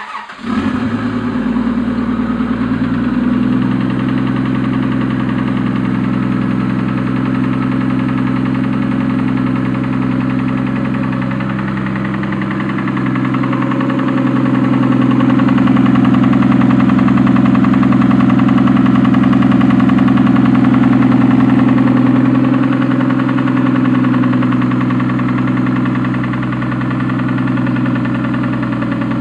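Car engine catching right at the start and then idling steadily, its note rising slightly for a stretch in the middle before settling back. It is being listened to for a possible knock.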